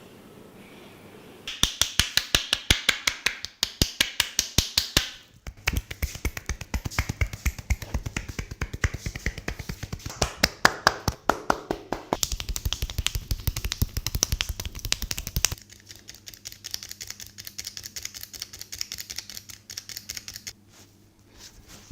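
Rapid cracking pops from a barber's massage, about seven sharp snaps a second. They start about a second and a half in, break off briefly around 5 s, and turn fainter after about 15 s.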